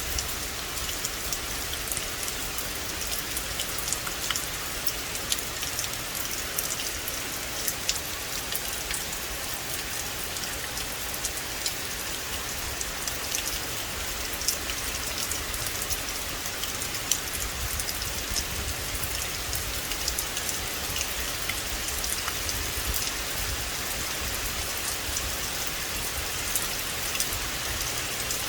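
Steady rain falling in a forest: an even hiss with a dense patter of individual drops ticking through it.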